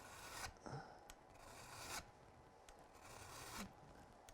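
Hand file drawn across an ice tool's pick in three faint, long, even strokes about a second and a half apart, filing the bevel to sharpen it.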